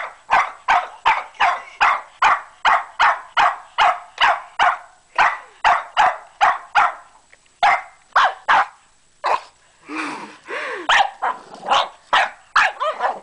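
Boston terrier barking rapidly and continuously at a toy, about three sharp barks a second. The barking thins out after about seven seconds and gives way briefly to a lower, wavering growl-like sound, then starts again near the end.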